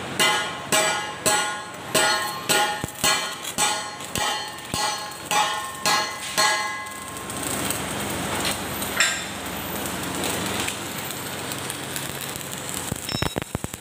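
Steel angle iron struck repeatedly with a hammer, about twice a second, each blow ringing, for the first half. Then the steady crackling hiss of electric arc welding.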